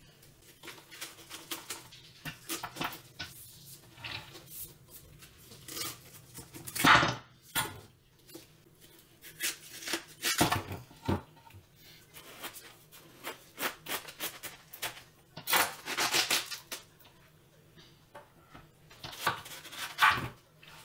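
A large kitchen knife cutting through a whole watermelon's rind and flesh on a wooden board: repeated crisp crunching strokes in clusters, loudest about seven seconds in and again near the end.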